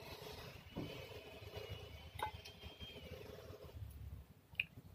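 A metal fork clinks lightly against a glass bowl a few times as a piece of dragon fruit is speared. One clink, about two seconds in, rings briefly.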